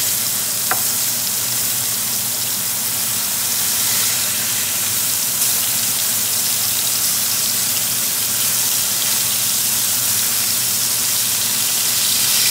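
Beef burger patties sizzling steadily in a hot griddle pan while a spatula turns them, with a couple of faint clicks from the spatula.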